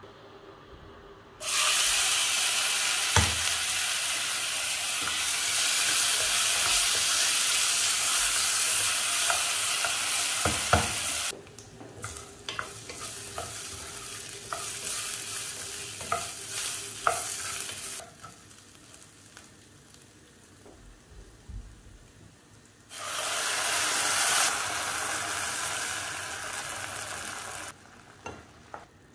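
Soaked rice sizzling in hot oil in a nonstick saucepan, stirred with a wooden spatula that taps and scrapes the pan. The sizzle cuts out suddenly, then comes back loud near the end as hot water goes in.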